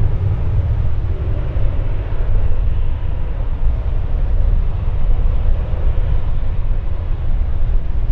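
Wind buffeting the microphone: a loud, gusty low rumble that rises and falls, over a steady background roar.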